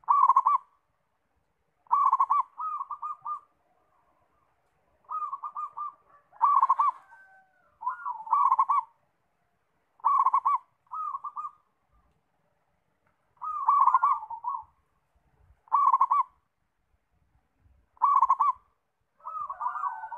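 Zebra dove (perkutut) cooing: short, rolling, trilled coo phrases repeated about every two seconds.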